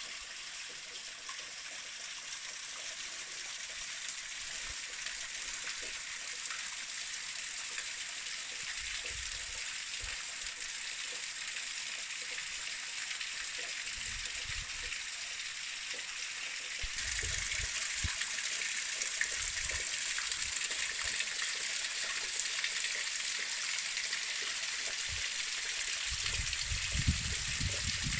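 Water from a small waterfall and stream pouring and splashing steadily, as an even hiss that gets louder about halfway through. Occasional low rumbles sound under it.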